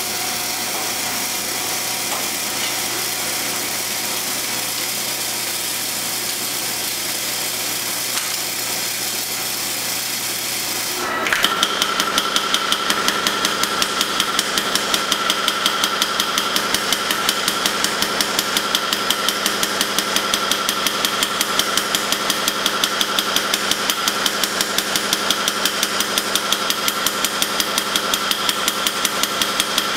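A steady machine hum. About a third of the way in, a power hammer starts striking red-hot blade steel in a fast, even rhythm of several blows a second, with a steady ringing tone over the blows.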